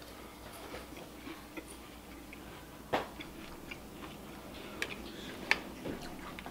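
Quiet chewing of a mouthful of Life cereal with almond milk, with a few sharp clicks of a metal spoon against the cereal bowl as more is scooped up. The sharpest click comes about halfway through.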